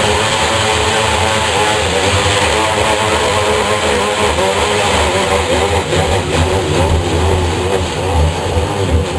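Electric drill running steadily as it cuts through sheetrock under light pressure, the motor's pitch wavering slightly.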